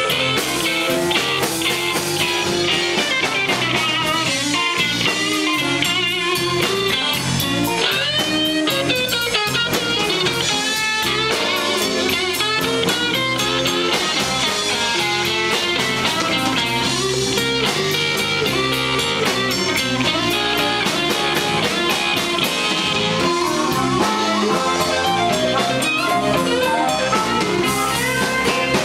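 Live blues band playing: an electric guitar plays bending lead lines over electric bass and a drum kit.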